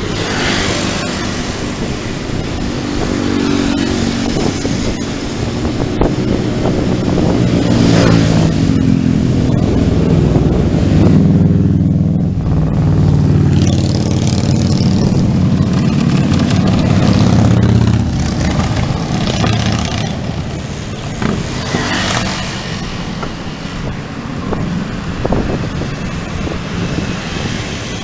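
Cruiser motorcycle engine running as it overtakes, building over the first half, loudest around the middle and fading after, over steady wind noise on a bicycle-mounted camera's microphone.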